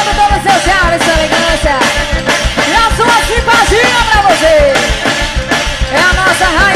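Quadrilha junina dance music, with a quick steady drum beat under a sliding, bending melody line.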